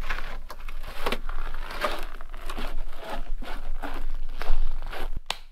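Footsteps crunching on hard, deeply frozen snow, about two steps a second. A single sharp click comes near the end.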